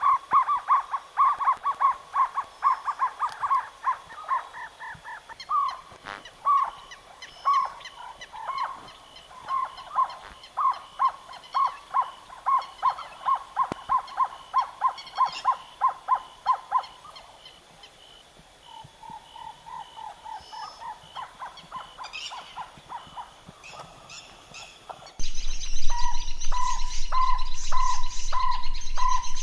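Jungle owlet calling: a long series of short, evenly repeated notes on one pitch, several a second, loudest through the first half, then a softer run. Near the end the background changes suddenly, and slower, spaced notes continue with small birds chirping high above.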